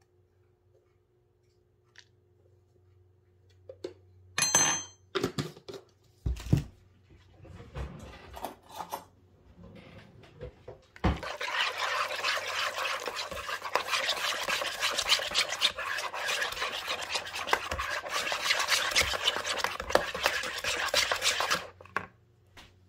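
Wire whisk beating yogurt and gram flour in a plastic bowl. A few scattered knocks and clinks come first, then about ten seconds of fast, steady, scratchy whisking that stops just before the end.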